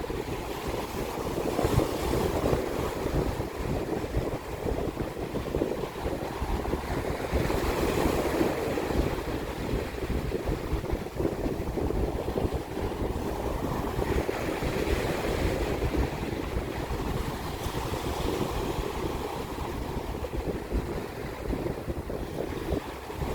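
Sea waves washing onto the shore in a steady rush, swelling louder about eight and fifteen seconds in, with wind buffeting the microphone.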